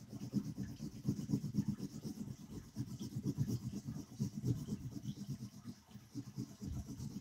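Crayon rubbed hard back and forth on paper over a board: rapid, uneven scratchy strokes, several a second, colouring in a large area.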